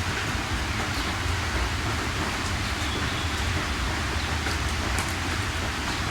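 Heavy rain falling steadily, an even hiss with a low rumble beneath and scattered faint drop ticks.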